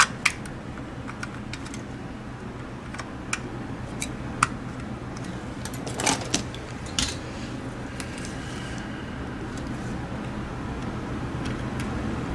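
Small plastic parts of a Logitech G Pro Wireless mouse clicking and tapping as the scroll-wheel assembly is fitted into the top shell and the shell is set down on a silicone mat. Scattered single clicks, with a louder cluster about six seconds in, over a steady low hum.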